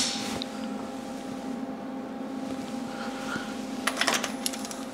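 A steady machine hum, with a short knock at the very start and a few clicks about four seconds in.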